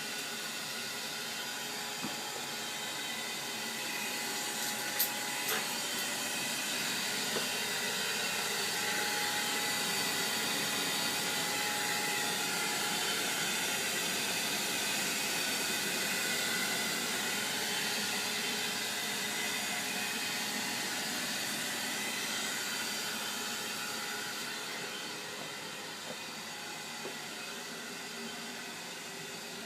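Keston C40 gas boiler running after repair: a steady rush of fan and burner noise that swells a little through the middle and eases near the end, with a couple of light clicks about five seconds in.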